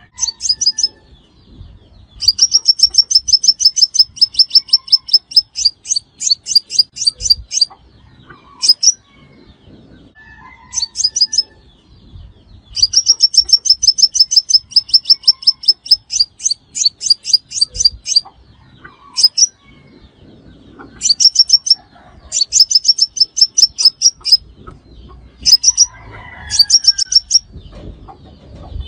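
Sunbird song: fast trains of sharp, high ticking notes, about eight a second. The trains range from single short bursts to runs of around five seconds, with brief pauses between them.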